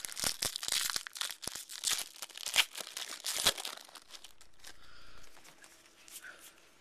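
Foil wrapper of a baseball card pack being torn open and crumpled, a dense crinkling crackle for about the first three and a half seconds. It then drops to a faint rustle as the cards are handled.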